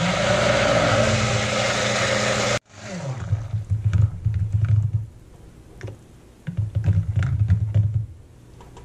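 A handheld stick blender runs in a crock pot of soap batter made from lard, coconut oil and lye. The motor whirs loudly with churning for about two and a half seconds, then cuts off sharply. It then runs in two shorter, quieter humming bursts as the batter is blended and begins to thicken.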